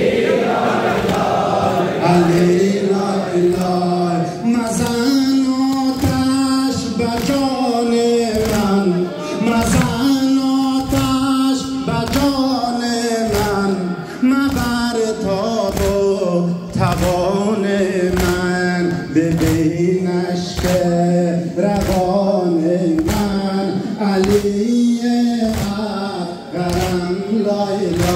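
Men chanting a Shia mourning lament (noha), a sung melody with long held notes, over a steady rhythm of chest-beating (matam): the gathering slapping their chests in time.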